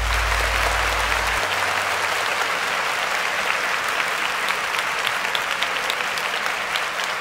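Crowd applauding, an even wash of many hands with scattered sharp claps. A deep bass note left over from the beat hangs on under it and cuts off about a second and a half in.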